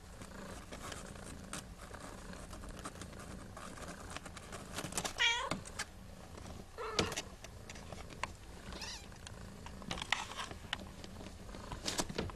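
Siamese kittens wrestling on a terry towel: scuffling and rustling throughout, with a few short meows. The loudest meow comes about five seconds in and wavers in pitch.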